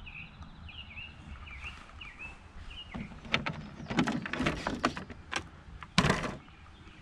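A bird chirping a short repeated note over a low wind rumble for the first few seconds. Then a run of clicks and hollow plastic clatter as the RC boat's plastic canopy hatch is unlatched and lifted off, with the sharpest click about six seconds in.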